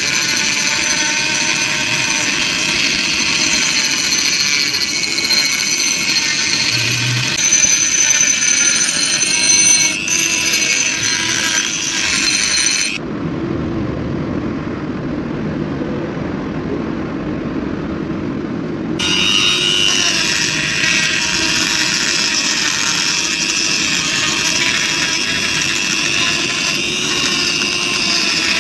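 Handheld electric rotary tool running at high speed, its small abrasive bit grinding rust off a steel hammer head, with a steady high whine. About 13 seconds in the sound cuts to a duller, lower noise without the whine for some six seconds, then the whine of the grinding returns.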